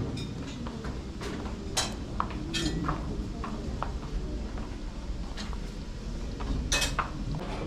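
Buffet dining-room clatter: scattered clinks of dishes, bowls and serving utensils over a steady low hum, the sharpest clink near the end.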